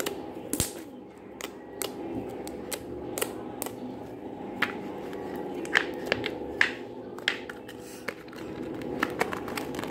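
White fluffy slime squeezed and kneaded by hand, giving irregular sharp clicks and pops, over a steady background hum.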